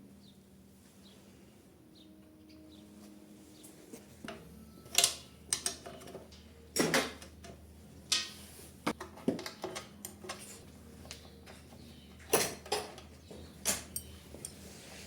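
Irregular metallic clinks and knocks, a dozen or so, like metal tools and parts being picked up and set down on a hard surface. They start about four seconds in over a faint steady hum, with the loudest knocks near the middle and again near the end.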